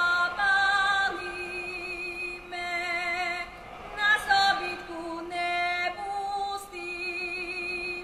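Slovak folk song: a woman singing long held notes with a wavering vibrato.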